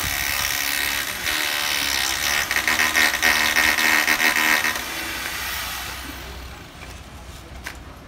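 Concrete vibrator running with its probe in the fresh concrete of a footing pour, a loud rattling whine that fades away over the last few seconds.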